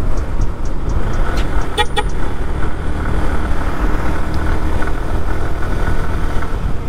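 Ride noise from a motorcycle on a road: a steady low rumble of engine and road noise, with two short horn toots about two seconds in.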